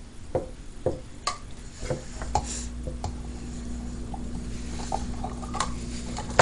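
Light taps and knocks of a plastic measuring cup against a glass measuring jug as milk is poured into biscuit mix, several in the first couple of seconds. A faint steady hum comes in about two seconds in.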